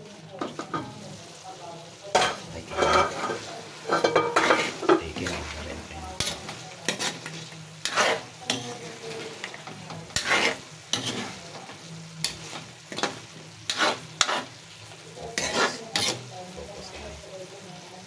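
Chicken adobo being stirred in a pan, the utensil scraping in irregular strokes over a steady sizzle.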